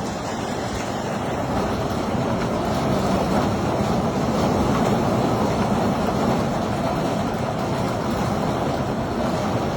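A steady rushing rumble at an even level, with no distinct strokes or rhythm.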